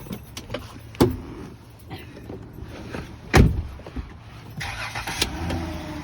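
A car door slams shut, the loudest sound, a little past the middle, after a lighter knock about a second in; then the car's engine cranks and catches, settling into a steady idle near the end.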